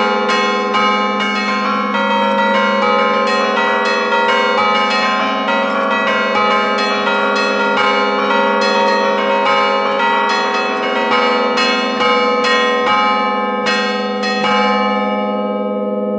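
Five-bell church peal in A-flat, Giorgio Pruneri bells of 1907, played as allegrezze: the bells are struck in quick succession from the keyboard, several strokes a second, in a festive tune over a steady low hum. Near the end the striking stops and the bells ring on, fading.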